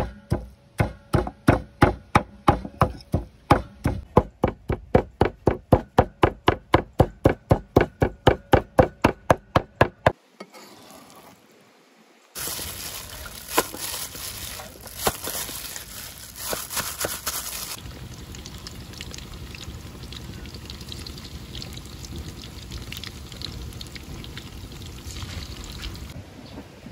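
A knife chopping on a cutting board in a fast, even rhythm of about four strokes a second for about ten seconds. After a short pause, food is frying in hot oil: a loud hissing and crackling for several seconds, which then settles into a quieter, steady sizzle.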